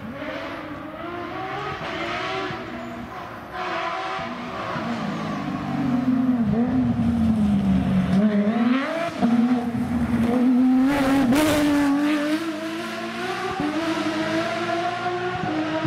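Porsche rally car engine revving hard, its pitch climbing and dropping again and again through gear changes and lifts. It grows louder about six seconds in as the car comes close.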